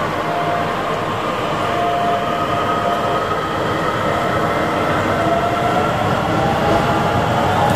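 DART electric multiple unit pulling out of the platform: steady running noise from the wheels and motors, with a thin electric whine from the traction motors that slowly rises in pitch as the train gathers speed, getting gradually louder.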